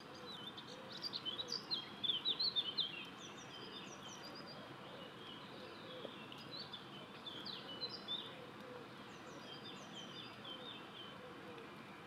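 A small songbird singing in rapid, high twittering phrases, in three bouts with the loudest near the start, over a steady background hiss.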